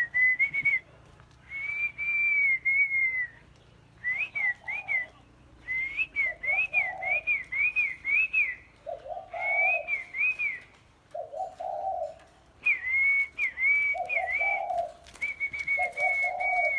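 Caged songbirds singing: a clear whistled song of short phrases built from quick rising-and-falling notes, with the low cooing of doves coming in between the phrases.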